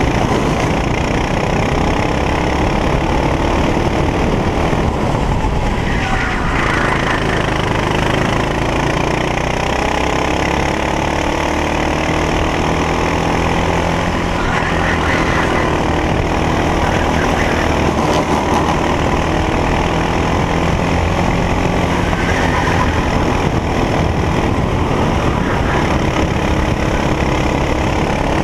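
Racing kart engine at race speed, heard from a camera mounted on the kart, its pitch rising and falling as the driver accelerates out of corners and lifts for the next.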